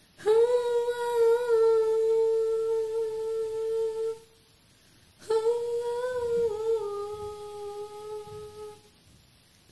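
A girl humming two long held notes without accompaniment, with a short pause between them. The second note sags slightly lower partway through.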